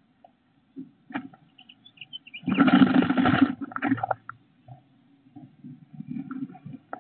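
Adult bluebird shuffling and settling onto its nestlings inside the nest box: a burst of rustling from feathers and dry nest grass about two and a half seconds in, lasting about a second, with lighter scratchy rustles and taps around it. A few short high chirps come just before the burst.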